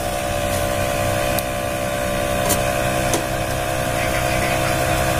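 Canon iR photocopier running with a steady mechanical hum, several steady tones held throughout. Three light clicks come over it as a screwdriver tightens the screws of its rear metal cover.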